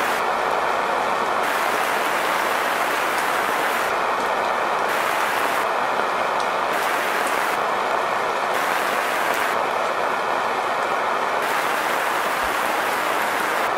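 Steady rain falling, a dense, even hiss that does not let up.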